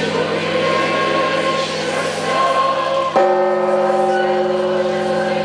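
Large Orthodox church bells ringing, their long humming tones overlapping. A fresh heavy strike comes about three seconds in and sets off a new chord of ringing tones.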